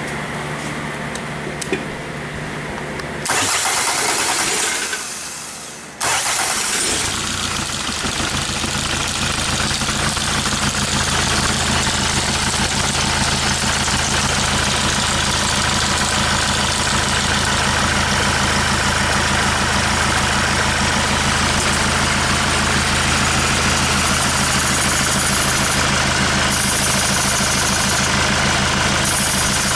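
Hyundai D4CB 2.5-litre four-cylinder common-rail diesel, run out of the vehicle on a test stand, being started: a few seconds of cranking noise, then it catches suddenly about six seconds in and settles into a steady idle.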